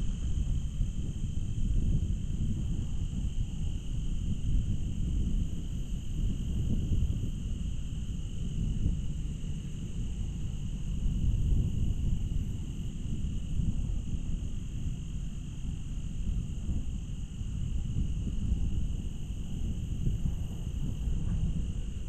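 Steady insect chorus, a continuous high-pitched chirring, over a louder, uneven low rumble.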